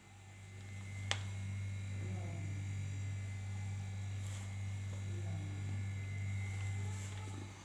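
Domestic cat purring close to the microphone, a steady low hum that stops near the end, with a sharp click about a second in.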